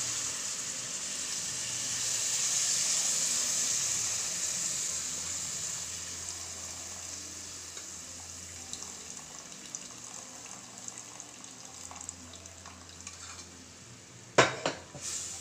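Duck stock poured into a hot metal kadai of fried onion-tomato masala, sizzling hard at first and fading to a quieter hiss as the liquid cools the pan. Near the end the slotted spoon knocks twice sharply against the pan.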